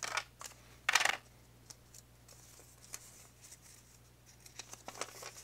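Clear plastic packaging crinkling as a small battery cell meter is handled, with two short, louder rustles in the first second. Faint clicks follow, and paper starts rustling near the end as a folded instruction sheet is pulled out.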